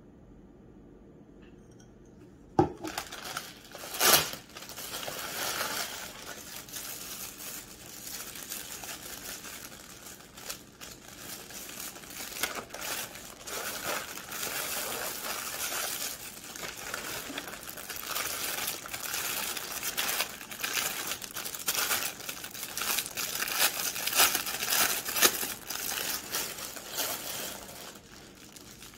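Plastic packaging crinkling and rustling as an item is unwrapped by hand, starting about two and a half seconds in with a couple of sharp snaps, then a continuous crackle that dies down near the end.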